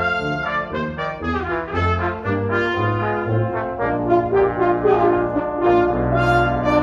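Brass ensemble of trumpets, French horn, trombones and tuba playing live: short detached low notes under the upper parts, moving into held chords about four seconds in.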